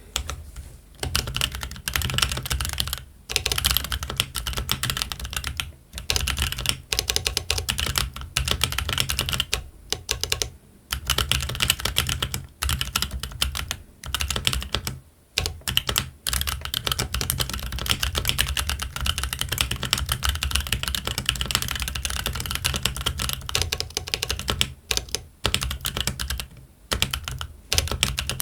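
Fast, continuous typing on a Keychron Q1 mechanical keyboard with Gazzew Boba U4T tactile switches and Cherry-profile ABS keycaps: a dense run of keystroke clacks broken by several brief pauses.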